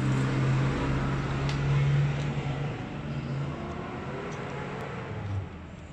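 A nearby engine running with a steady low drone that eases off about three seconds in, with a few faint clicks of small metal parts being handled.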